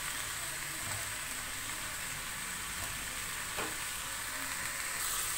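Boiled flat beans (chikkudu) with onions and dried red chillies frying in oil in a kadai: a steady sizzle, with a wooden spatula stirring them.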